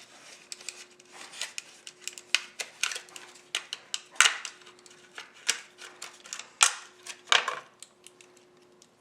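Plastic packaging being handled and pulled apart by hand: irregular clicks and crackles, with a few sharper snaps about four, six and a half and seven seconds in.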